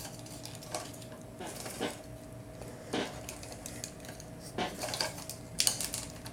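Hard plastic clicks and taps from a Wave W.H.A.M. Helldiver action figure and its Gatling gun accessory being handled and posed, separate clicks about a second apart, coming faster near the end.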